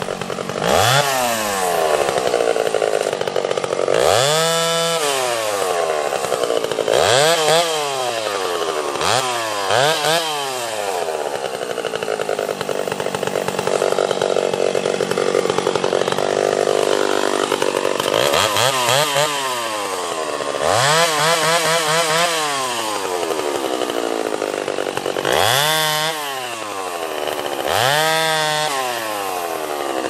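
Freshly ported Stihl 031 AV chainsaw (raised exhaust port, cleaned-up transfers and intake, lowered deck) cutting through downed limbs, the engine revving up and dropping back about ten times, with a longer steady run at high revs midway.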